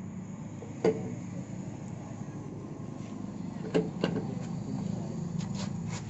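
A few sharp metallic clicks and knocks from handling a bolt and parts on a rotavator gearbox housing: one about a second in, two near the middle and a quick cluster near the end, over a steady low hum.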